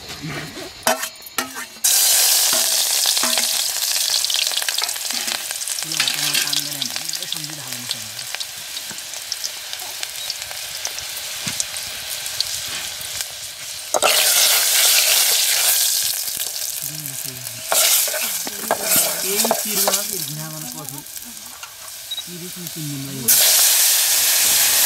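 Hot oil sizzling and spitting in an aluminium pot over a wood fire. The sizzle surges up sharply several times as food is dropped in, the last near the end as dried meat hits the oil with a burst of steam.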